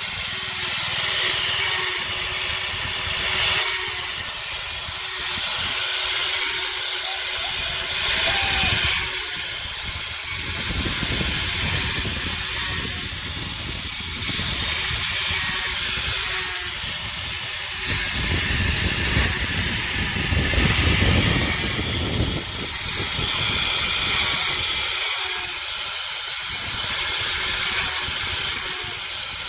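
Power abrasive tool working the steel of a hand saw blade: a steady hiss of grinding or sanding over a faint motor hum, rising and falling about once a second as the tool is pressed and moved.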